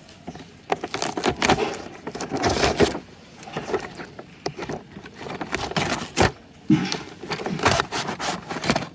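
A toy's packaging being opened and handled by hand: irregular scraping, rustling and clicks.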